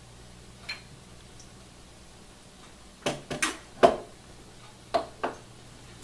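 Glass bottles and a shot glass knocking and clinking on a wooden tabletop as they are set down. One faint click comes about a second in, a cluster of sharp knocks follows a little past halfway, the loudest among them, and two more come near the end.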